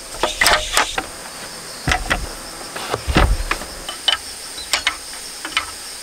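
Wooden standing rack being lifted and set down on the tent floor: irregular knocks and clicks of wood, with a few heavier thumps in the first half. A steady high drone of insects runs underneath.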